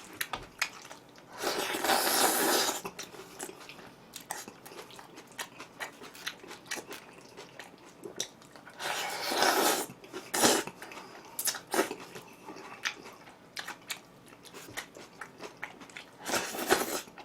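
A person chewing food close to the microphone, with many small wet clicks and three louder rushes of noise about a second long each.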